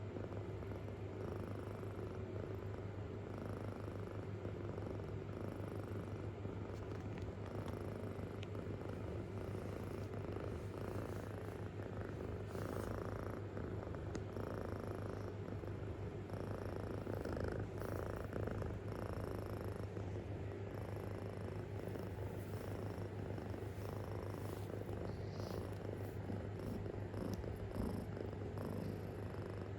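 A kitten purring steadily and deeply, close up.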